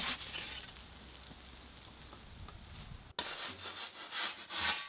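Gozney Roccbox pizza oven's flame running steadily with a low hum while the pizza is slid out on a metal peel. From about three seconds in, a few scraping strokes of the metal peel sliding on a wooden cutting board.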